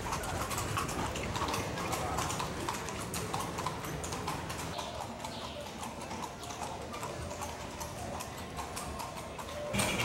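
A carriage horse's hooves clip-clopping steadily on a paved street as it pulls a horse-drawn carriage. The sound grows louder just before the end.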